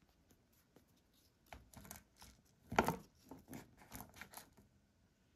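A small plastic toy pony being handled and set down on a tabletop: a run of light clicks, knocks and rustles, the loudest one about halfway through.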